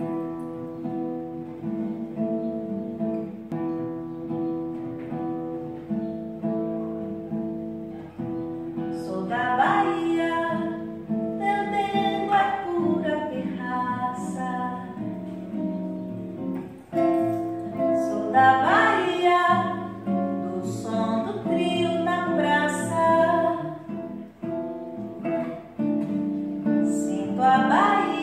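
Acoustic guitar playing alone at first; about nine seconds in, a woman's voice begins singing along with it.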